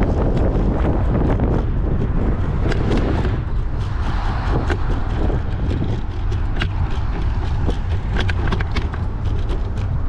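Wind rumbling on the microphone of a moving bike, with frequent sharp clicks and rattles from riding over the road.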